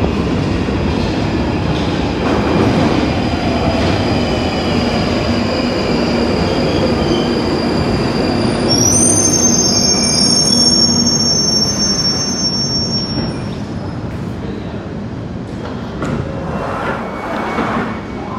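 London Underground Northern line 1995 stock train running into the platform, a steady loud rumble of wheels on rail. A high wheel squeal comes in from about halfway through for several seconds as it slows.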